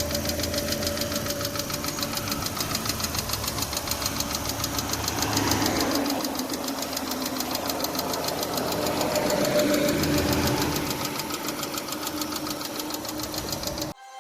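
2006 Chevy Aveo LS engine running with a fast, even ticking over the drone, the ticking noise the car is known for. It swells louder twice, midway and about ten seconds in, and cuts off just before the end.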